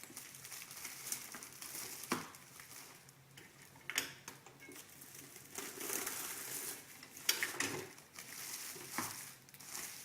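Plastic shrink film crinkling and rustling as it is handled in a 16-inch impulse sealer, with a few sharp clacks as the sealer's arm is pressed down and released and the excess film is torn off.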